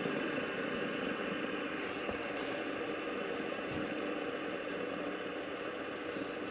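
Fidget spinner spinning freely on its bearing with a steady whirring hum. A couple of brief rustles come about two seconds in, and a small click follows.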